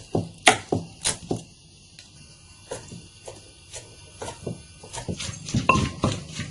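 Knife chopping shrimp on a cutting board: a run of sharp, irregular knocks, with a quick group about a second in, sparser strokes in the middle and a denser flurry near the end.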